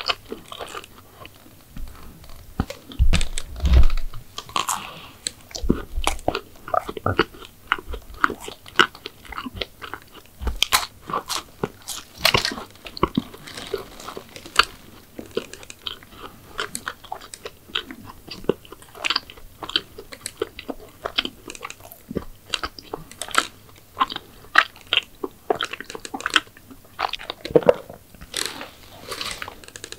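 Close-miked biting and chewing of crisp McDonald's sweets: many sharp, irregular crunches and chewing clicks, with a heavier low thump about three seconds in.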